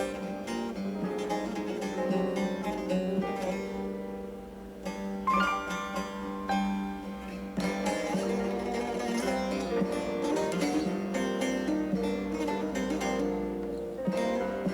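Background music: plucked string instruments, guitar-like, playing a melody over held notes.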